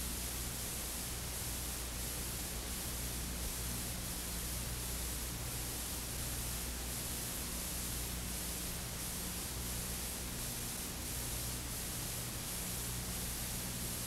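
Steady hiss and static from an old videotape transfer, with a low hum underneath and no music or voice.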